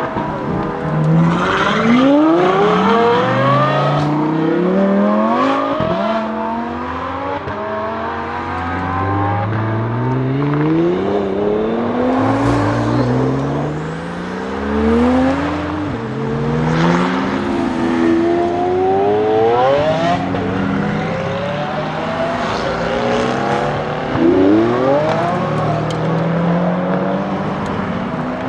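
Lamborghini Huracán STO's naturally aspirated V10 accelerating hard on track, revs climbing again and again and dropping at each upshift; at times more than one engine note overlaps.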